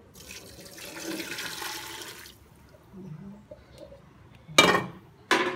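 Broth poured from a pan into an aluminium pressure cooker over pieces of chicken, a splashing pour lasting about two seconds. Near the end come two loud metal knocks as the aluminium pot is handled.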